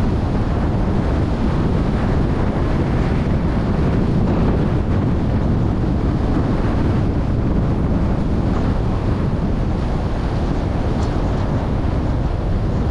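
Steady rumble of wind on the microphone and road noise from a car driving along.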